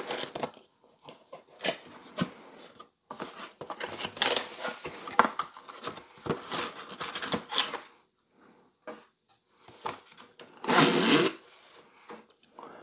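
Cardboard box being unpacked: flaps and packing inserts rustling, rubbing and scraping in short bursts, with a longer, louder scrape near the end as the packing is pulled out.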